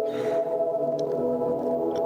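Soft sustained background music: held chords with no beat, running steadily.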